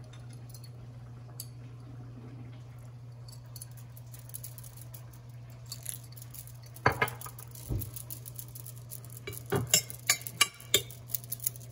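A metal fork clinking and scraping against a serving platter as rice is mixed, with a few sharp clinks about seven seconds in and a quick run of them near the end, over a steady low hum.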